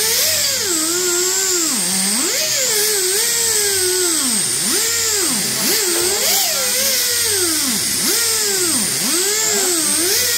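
High-speed power tool spinning a Scotch-Brite Roloc surface-conditioning disc against a metal gasket surface, cleaning it flat. Its whine sags in pitch each time the disc is pressed into the work and climbs back when eased off, over and over.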